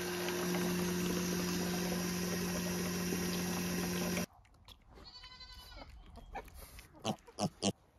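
Electric cream separator running with a steady hum, cutting off abruptly about four seconds in. After it, a short animal call and a few sharp short sounds.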